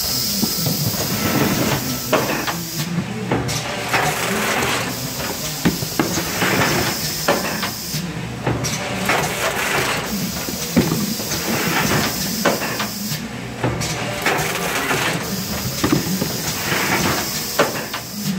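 Eagle T20CF automatic case erector cycling as it forms double-wall cartons: air cylinders hiss and clack, and drive belts run underneath. The pattern repeats about every five seconds, one cycle per carton.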